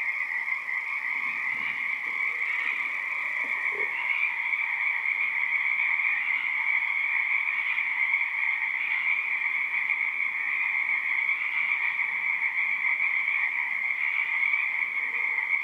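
Frog chorus coming in through an open window: many frogs calling at once in a dense, steady wall of sound without a break.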